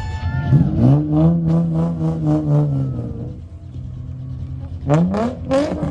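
Car engine revved up and held for about two seconds, dropping back to idle, then revved again near the end.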